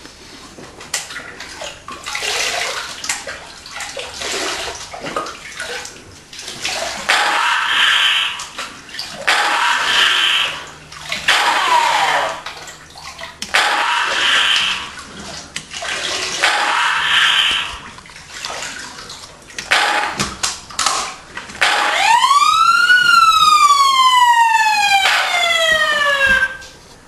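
Water splashing and pouring in bursts as a laser tag helmet with sensors is dunked into a plastic tub of water and lifted out again. Near the end an electronic tone from the wet helmet rises briefly and then falls slowly over about four seconds, a second falling tone overlapping it.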